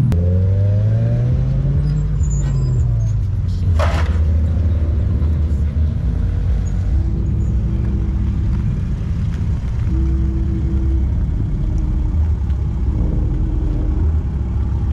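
Car engine running with a steady low rumble, its pitch rising and then falling once over the first few seconds as it is revved. A single sharp crack about four seconds in.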